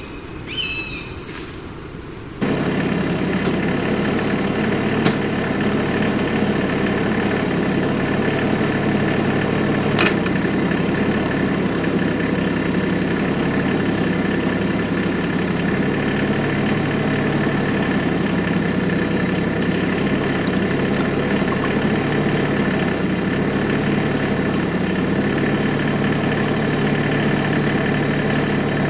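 A tractor's diesel engine running steadily at a constant speed, coming in abruptly a couple of seconds in, with a few short clicks over it.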